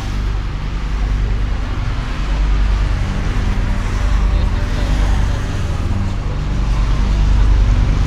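A steady low engine rumble from motor traffic, holding the same pitch throughout.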